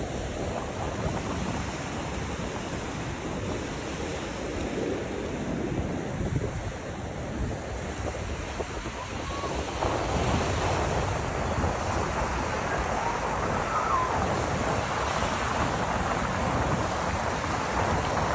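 Sea surf washing onto a sandy beach, with wind rumbling on the microphone. The surf gets louder and brighter about halfway through.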